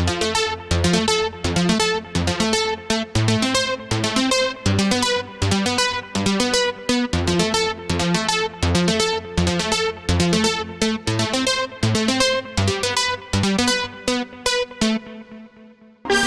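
A pluck preset on the Acustica Audio Nox software synthesizer plays a steady, quick rhythmic pattern of short notes, about four a second, over a stepping bass line. The pattern dies away near the end, and a new sustained synth sound comes in at the very end.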